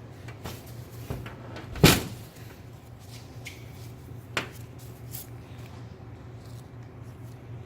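A cabinet shut with a single loud knock about two seconds in, then a fainter click a couple of seconds later, over a steady low hum.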